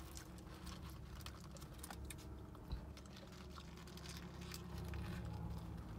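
A person eating a burger: quiet chewing and the crinkle of its paper wrapper as small scattered clicks, over a low steady hum, with one soft thump a little before the middle.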